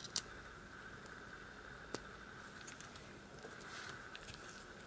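Quiet handling of a padlock's small metal parts and tools: a few faint clicks, with one sharp click about two seconds in, over a faint steady whine.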